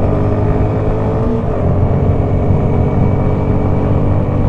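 Motorcycle engine running at riding speed, its pitch creeping slightly upward with a brief change about a second and a half in, under heavy wind noise on the microphone.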